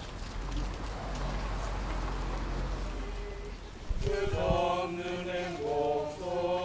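Outdoor background noise with a low rumble, then about four seconds in a small robed choir starts singing a slow hymn, holding notes that step up and down.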